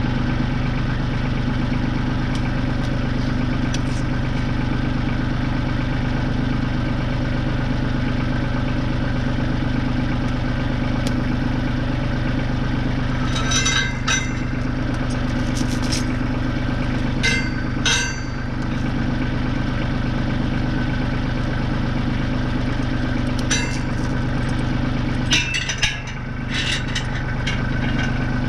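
Tractor engine idling steadily. A steel logging chain clinks and rattles in short bursts about halfway through and again near the end as it is wrapped around a log.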